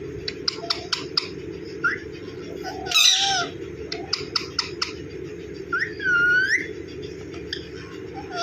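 Green parrot vocalising: a run of sharp beak clicks, a short harsh squawk about three seconds in (the loudest sound), and a dipping, rising whistled call about six seconds in, over a steady low hum.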